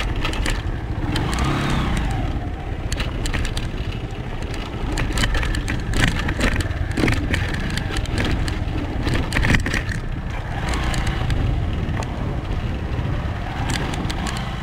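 Motorcycle engine running while riding a rough dirt trail, with frequent knocks and rattles as the bike goes over bumps.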